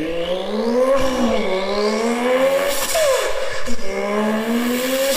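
A man's voice imitating a racing car engine revving, the pitch rising and falling in smooth glides over and over, with a sharper falling swoop about three seconds in.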